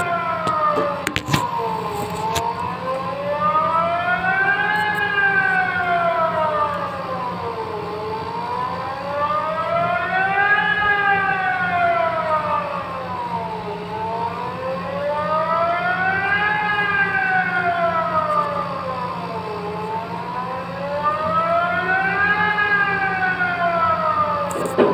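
Civil defense siren wailing as an emergency alarm: several tones sounding together, rising and falling slowly in pitch about every six seconds.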